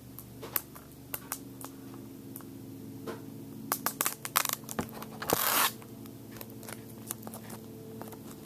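Hands handling a plastic DVD case and its wrapping: scattered sharp clicks and taps, with a short rustling burst about five seconds in, over a faint steady low hum.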